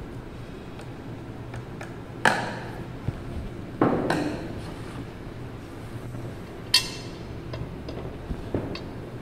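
Sheet-metal parts and tools knocking and clinking against a flat knitting machine's metal frame as a bracket is handled: a sharp knock about two seconds in, a few more around four seconds, and a ringing metallic clink near seven seconds, over a steady low hum.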